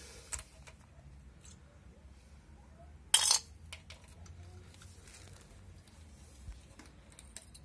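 Metal tools and gearbox parts clinking over a low steady hum: a few light clicks and one short metallic clatter about three seconds in.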